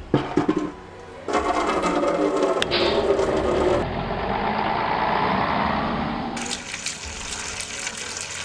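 Water running from a tap into a plastic bucket and spilling over the brim, a steady rushing that starts about a second in after a few clatters of the bucket being set down. The rush turns duller for a couple of seconds in the middle, then comes back bright.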